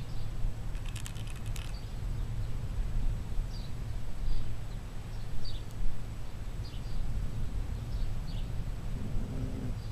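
Outdoor ambience: a steady low rumble with small birds giving short high chirps every second or so. About a second in comes a brief run of crisp crunching clicks, fitting the black cat chewing dry kibble from the bowl, and near the end a short low hum-like sound.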